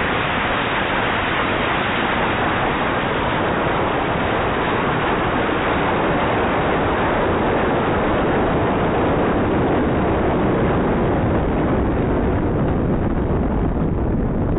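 Wind rushing over the microphone of an iPhone riding aloft on a water rocket: a loud, steady rush of noise throughout.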